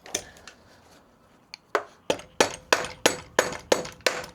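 Sharp metallic taps about three a second, each with a short ringing note, starting a little under two seconds in. It is the sound of an RS250 engine cylinder being tapped loose from the crankcase.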